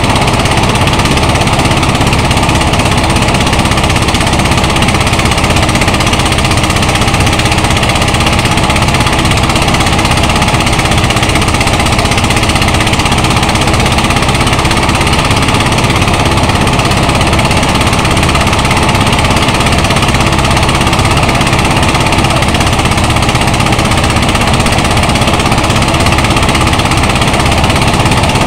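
Engine-powered rice thresher running loudly and steadily while threshing palay: a continuous engine and machine drone with no change in speed.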